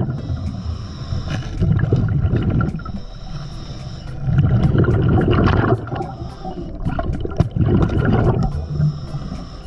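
Scuba diver breathing through a regulator underwater: quieter stretches of inhaled hiss alternate with the low gurgle of exhaled bubbles, several breaths in a row.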